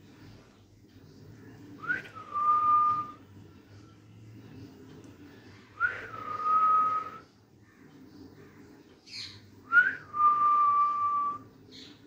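A whistled call repeated three times, about four seconds apart: each a quick upward flick, then one steady note held for about a second. Two faint short high chirps come in near the end.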